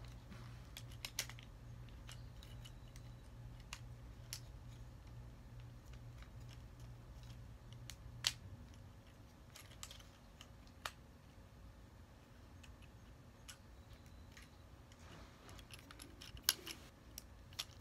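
Scattered sharp plastic clicks and snaps from a Transformers Studio Series 29 Sideswipe action figure as its parts are moved and fitted by hand, over a low steady hum that stops about halfway through.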